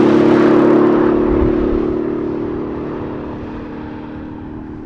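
Mercedes-AMG GLE 63 S Coupe's twin-turbo V8 driving away at steady speed: a low, steady engine note that slowly fades as the car recedes.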